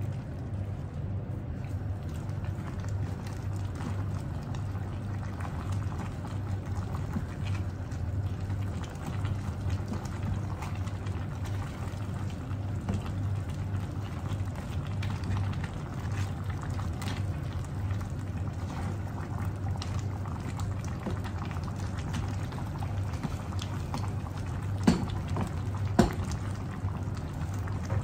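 Crab and prawn stew in coconut cream bubbling in a pan over a gas burner while a wooden spatula stirs it, over a steady low hum. Two sharp knocks near the end.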